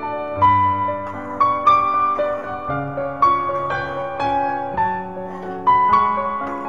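Background piano music: a slow melody of single notes over lower held chords, a new note struck about every half second to second.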